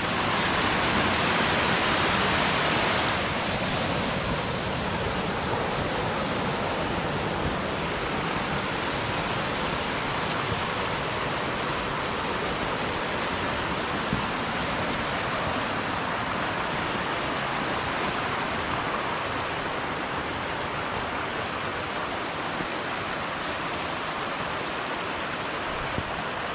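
Creek water rushing over a waterfall, a steady full roar of high flow swollen by snowmelt, a little louder for the first three seconds.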